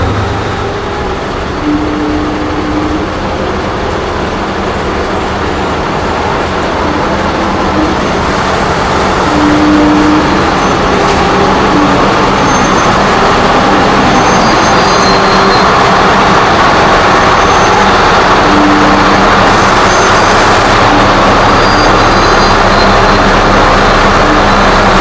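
Scania T-series bonneted trucks driving slowly past in a convoy, their diesel engines running loud and growing louder about ten seconds in as a truck comes close.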